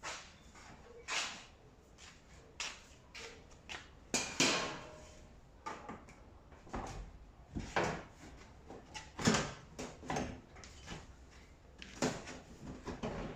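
Irregular knocks and short scrapes of LG tumble dryer parts being handled and fitted together during assembly.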